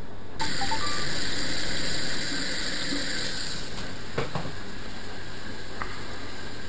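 A vintage washing machine taking in water: a rushing hiss starts suddenly about half a second in, loudest for the first two seconds, then carries on lower, with a single knock about four seconds in.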